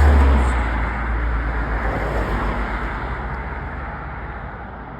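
A motor vehicle passing close by on the road, its low engine rumble and tyre noise loudest at the start and then fading away.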